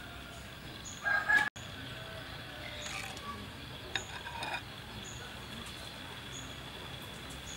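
Chickens calling over outdoor background sound: a short, loud call about a second in that cuts off suddenly, and fainter calls a couple of seconds later.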